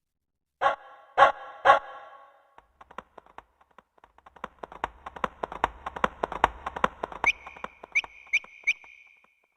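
Yamaha PSR-E373 keyboard playing its built-in sound-effect voices: three short pitched hits about a second in, then a long irregular run of sharp clicks like hoofbeats, with four quick chirps near the end.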